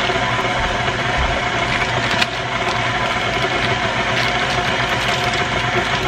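Electric mixer beating cake batter, its motor running with a steady hum; a brief knock about two seconds in.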